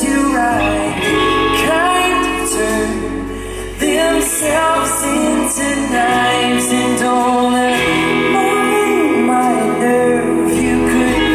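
Live band music with guitars and drums, and male and female voices singing over it. The music drops back briefly a little before four seconds in, then comes in full again.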